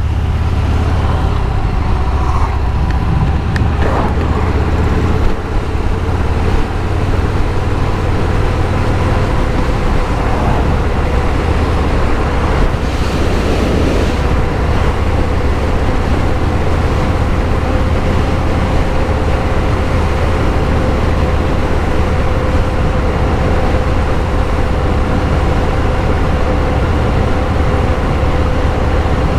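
Harley-Davidson Milwaukee-Eight 114 V-twin motorcycle running steadily while being ridden on the road, with a constant low rumble.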